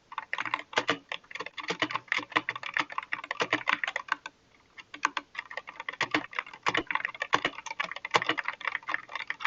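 Fast typing on an SK61 mechanical keyboard with optical red switches: a rapid run of keystroke clacks that pauses for under a second about four seconds in, then carries on.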